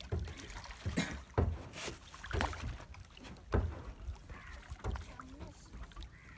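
Water slapping against the hull of a small wooden fishing boat, in irregular short knocks about once a second.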